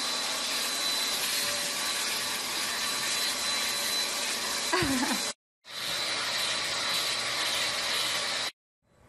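Vacuum cleaner running steadily with a high whine, its hose nozzle being run over a French bulldog's coat. The sound cuts out about five seconds in, starts again and stops near the end.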